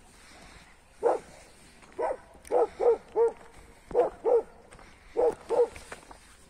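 Dog barking in short runs of two or three barks, about nine barks in all, with pauses of about a second between runs.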